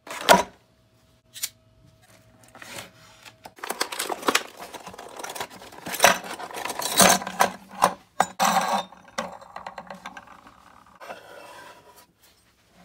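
Metal swivel casters clinking and rattling as they are handled and set in place on a painted plywood box, with sharp knocks against the wood and scraping. The loudest knock comes right at the start.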